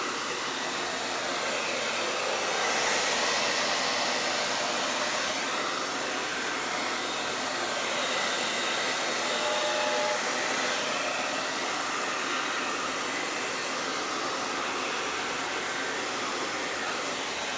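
Hair dryer running steadily, blowing poured paint across a canvas.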